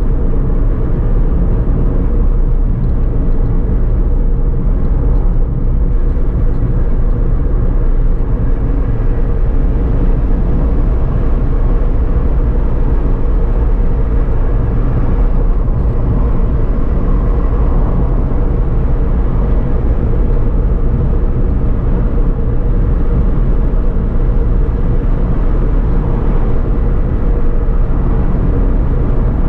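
Steady low rumble of road and engine noise from a Suzuki Alto driving along a highway, heard from inside the car.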